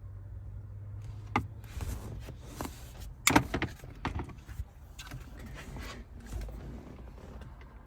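Scattered clicks and knocks of hands working on parts, with one sharp loud click about three seconds in, over a low hum.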